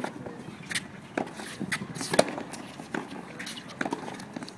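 A tennis rally on a hard court: a racket strikes the ball with a sharp crack about two seconds in. Lighter knocks of the ball bouncing and players' footsteps fall between the strokes.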